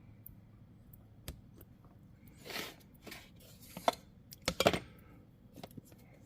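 Small metal parts being handled and fitted onto a chainsaw: scattered clicks and clinks, a short scrape about two and a half seconds in, and a few louder clanks around four to five seconds in.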